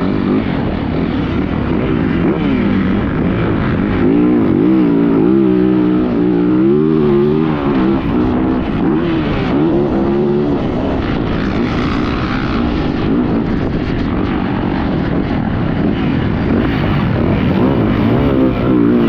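Yamaha YZ450F motocross bike's single-cylinder four-stroke engine running under riding load. Its pitch rises and falls again and again as the throttle is opened and closed, most plainly in the middle.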